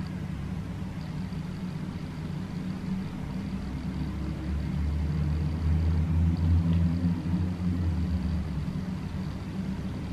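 Low, steady background rumble that swells a little past the middle, with a faint thin high whine above it.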